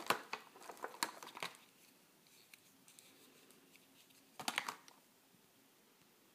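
Small die-cast toy truck and clear plastic blister packaging clicking and crinkling as the truck is handled and lifted out of its tray. A few sharp clicks in the first second and a louder cluster of clicks about four and a half seconds in.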